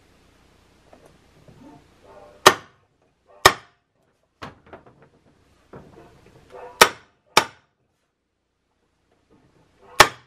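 Center punch marking drill-hole locations on a plastic refrigerator vent. It gives five sharp snaps, mostly in pairs about half a second to a second apart, with faint scraping of paper and tool between them.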